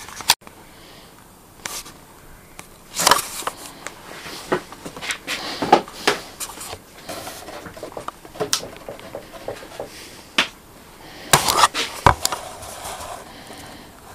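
Scattered knocks, clicks and scrapes of hand work on a wooden planer table, with a few sharper knocks about three seconds in, near the middle and near the end.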